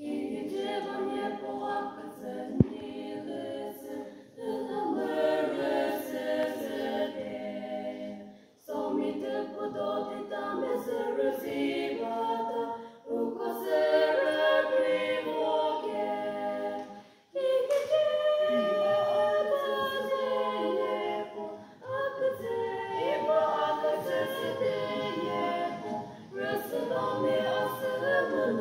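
Female vocal quartet singing unaccompanied in harmony, in phrases of a few seconds with short breaks for breath between them. A single sharp click about two and a half seconds in.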